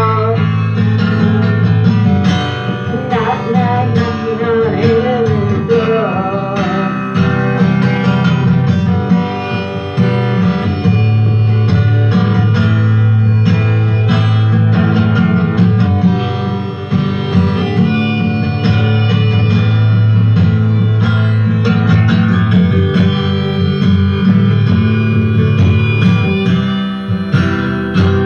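Acoustic guitar strummed with a harmonica melody over it, a recording played back loud through a PA speaker.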